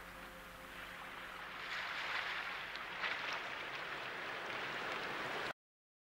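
A soft, steady rushing noise like surf, a little louder from about two seconds in, that cuts off suddenly near the end.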